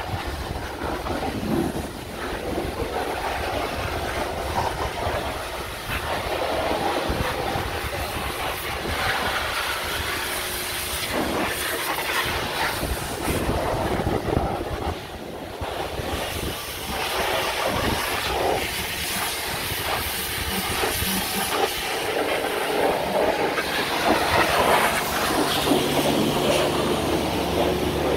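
High-pressure washer jet spraying a bare Land Rover Defender chassis: a continuous rough hiss of water striking the metal frame, swelling and fading as the lance moves. A steady low hum comes in near the end.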